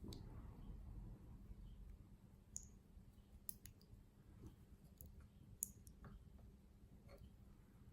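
Faint, scattered small clicks and taps from working a pin-tumbler lock apart on the bench, with two sharper ticks about two and a half seconds in and near the middle.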